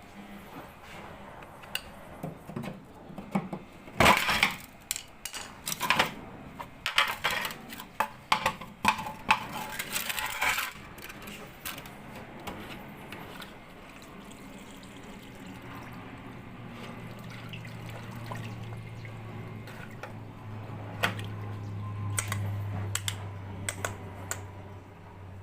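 Water splashing with hard clattering knocks from a Whirlpool washing machine that is being unblocked because it won't drain. About two-thirds of the way through, a steady low machine hum sets in and grows louder.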